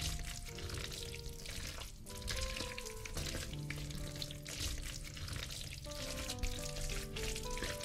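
Food sizzling and crackling in a hot frying pan, with soft background music playing over it.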